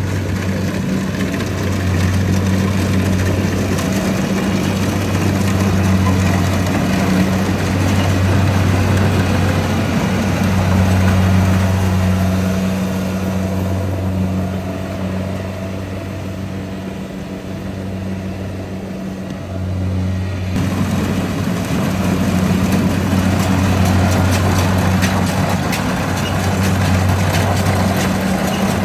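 Rice combine harvester engine running steadily with a low drone and mechanical rattle. It drops a little in level a bit past the middle, then comes back louder abruptly about twenty seconds in.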